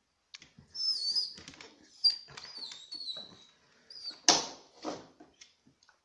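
A dog sniffing hard at a plush toy in a string of short bursts, with a sharp louder snort a little past four seconds. Thin, wavering high-pitched squeaks run through the first half.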